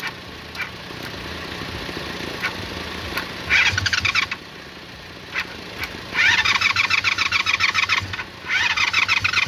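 Motorcycle engine being cranked over by its starter motor in three bursts, the second one longest, with a few sharp clicks in between; it does not catch and keep running.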